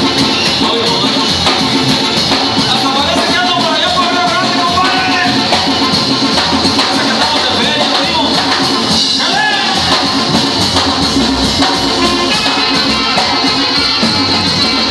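Live band playing Mexican dance music with drums and a steady beat, loud throughout.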